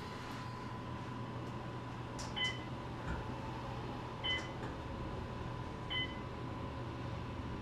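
Three short electronic beeps in an elevator car, about two seconds apart, over a steady hum.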